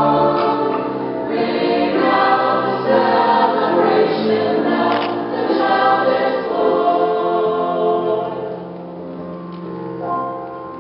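Mixed choir singing with piano accompaniment. The voices die away about eight seconds in, leaving the piano, which sounds a new chord near the end.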